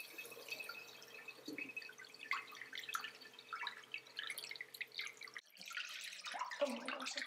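Dirty water pouring from the water basin of an Ocean Blue water-filtration vacuum, splashing and spattering into a sink as the basin is emptied. It breaks off briefly a little over five seconds in, then goes on.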